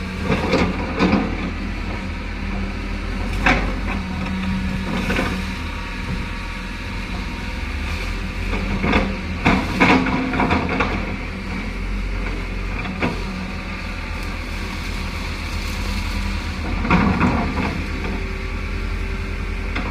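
Kobelco excavator's diesel engine running steadily under work. Short bursts of scraping and clattering come at irregular moments, about half a dozen times.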